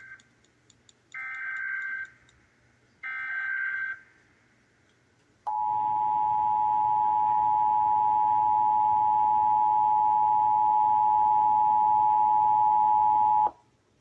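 Emergency Alert System test tones: the end of one SAME header data burst, then two more bursts of about a second each. After a short pause comes the two-tone 853 and 960 Hz attention signal, held steady for about eight seconds before it cuts off suddenly.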